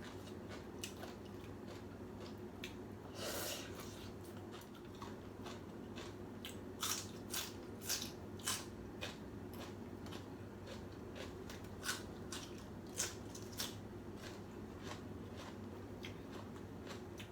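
A person eating pho noodle soup: chewing, with many short sharp clicks scattered throughout and a brief noisy slurp about three seconds in, over a steady low hum.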